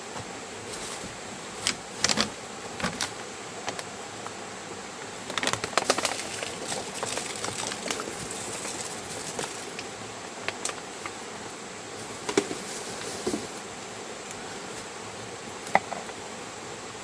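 Litter being picked up and handled by hand: scattered clicks and crinkles, with a denser run of crackling about five to seven seconds in, over a steady hiss.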